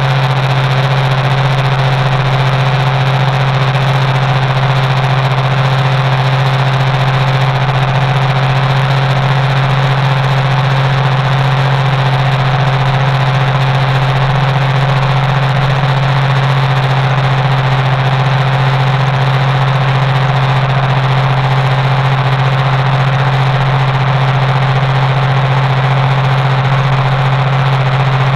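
Compact tractor engine running steadily at constant speed as the tractor drives, heard close up from its hood: an even drone that holds one pitch throughout.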